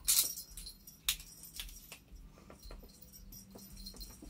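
Light jingling and scattered sharp clicks as cats bat at a wand chaser toy, the loudest click right at the start and a few more after it.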